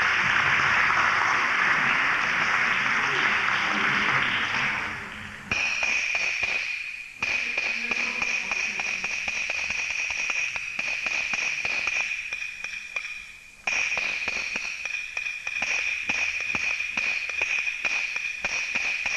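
Applause for the first five seconds or so, then rapid, dense stick strokes on a danpigu, the small Peking opera drum, in fast runs broken by two short pauses.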